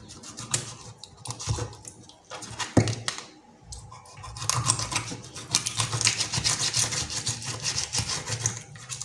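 Kitchen knife sawing through a whole fish on a bamboo cutting board: a few separate knocks and scrapes, then from about halfway a quick, dense run of crunching, scraping strokes as the blade works through the body.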